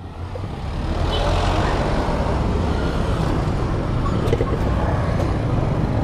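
A motor vehicle engine running steadily close by: an even low rumble with no revving.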